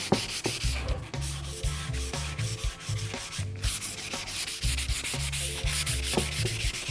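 320-grit waterproof sandpaper rubbed back and forth by hand over a wooden board still wet with Watco oil, in steady scrubbing strokes: oil sanding, which works the oil deeper into the grain and smooths the surface.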